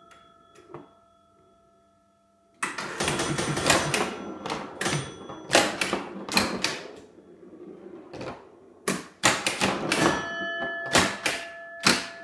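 1950 Gottlieb Madison Square Gardens electro-mechanical woodrail pinball machine in play: after a near-quiet start with a single faint click, a fast, irregular clatter of sharp clicks and knocks from the ball, playfield mechanisms and scoring relays begins about two and a half seconds in and keeps going.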